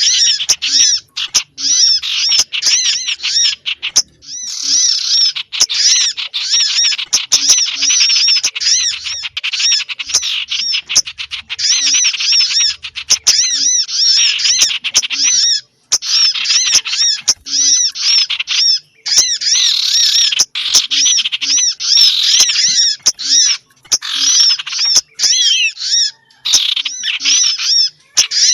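Small-bird lure call (suara pikat for burung kecil): dense, continuous chirping and twittering of small songbirds in rapid high arching notes, broken by short gaps every few seconds.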